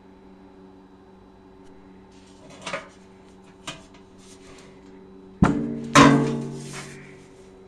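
Metal being handled and struck: a couple of light clicks, then two sharp metallic strikes about half a second apart, each ringing on and fading over about a second, over a steady electrical hum.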